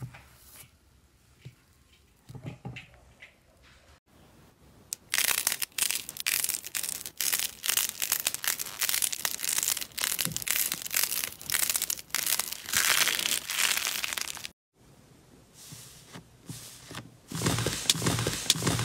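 Slime handled close up: faint soft squishing for the first few seconds, then from about five seconds in, loud, dense crackling and crunching as pink slime balls with a hardened, cracked crust are squeezed by hand. This stops abruptly, and near the end an orange slime with a broken crust is pressed with crackling and squishing.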